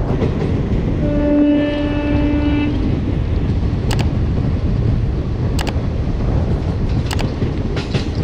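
Narmada Express passenger train running at speed, heard from beside an open coach with a steady rumble and wind rush. One horn blast of about two seconds starts a second in, and a few sharp clicks of the wheels follow in the second half.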